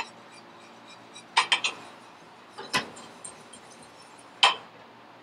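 Metal whisk knocking against a stainless steel saucepan in a few sharp clinks: one at the start, a quick group of three about a second and a half in, then single ones near the middle and near the end.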